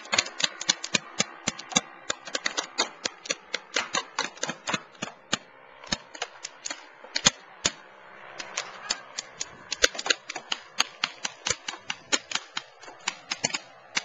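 Paintball markers firing in a running exchange, with strings of sharp pops several a second. The shots thin out for a couple of seconds about halfway through, then pick up again.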